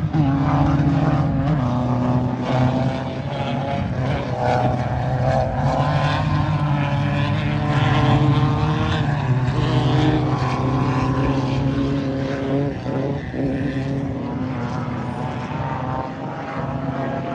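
A Class 1600 desert race car's air-cooled Volkswagen engine running hard, its pitch stepping up and down several times as the revs change.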